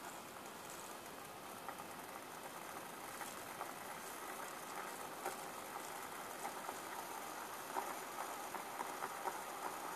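Homemade beer-can methanol blowtorch burning with a steady hiss, dotted with small crackles and pops that grow a little louder toward the end.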